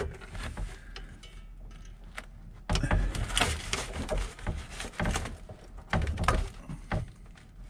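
Irregular clicks and knocks of a tool and hands working on 3/4-inch PEX water pipe as it is cut off. Faint at first, then busier from about a third of the way in.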